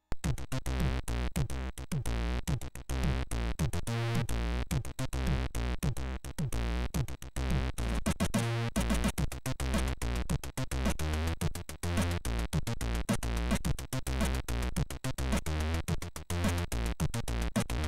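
Commodore 64 SID chip music starting suddenly: a fast electronic tune with a heavy bass line and rapid, evenly spaced drum hits.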